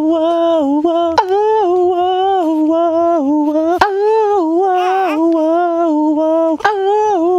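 A man humming one high, steady note right at a newborn's face, the pitch dipping briefly and coming back about once a second: a soothing trick that calms the crying baby. Three short clicks cut through it.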